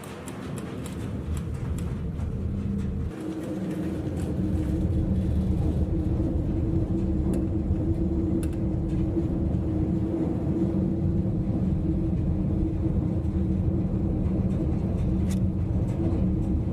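Low, steady rumble with a constant hum from a cruise ship caught in a storm, growing louder over the first few seconds and then holding steady.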